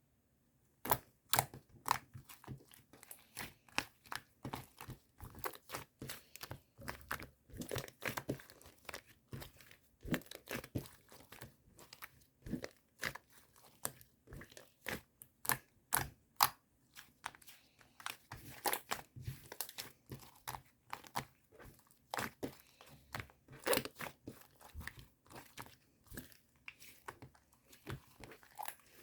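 Close-up crunching and crinkling: dense, irregular crackles and snaps, several a second, as something crunchy or crinkly is squeezed and worked by hand.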